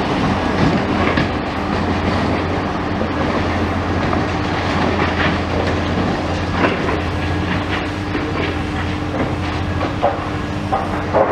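Demolition excavator's diesel engine running steadily, with scattered knocks, crunches and clatter as its grab tears into the building's concrete and steel.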